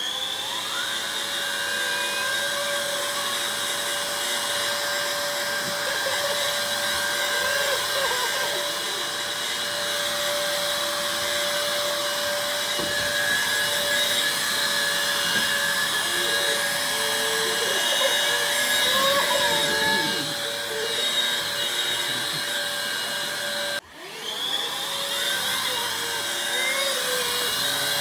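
Vacuum cleaner motor running with a steady whine and rushing air. Near the end it cuts out for an instant and then spins back up to speed.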